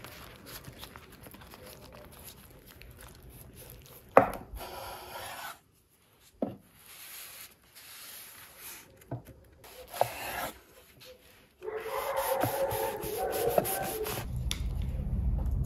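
A kitchen knife sawing through a rolled lavash wrap onto a wooden cutting board: rasping strokes and a few knocks of the blade on the wood, with a sharp knock about four seconds in. Soft rustling of the flatbread being rolled comes first, and a low rumble comes in near the end.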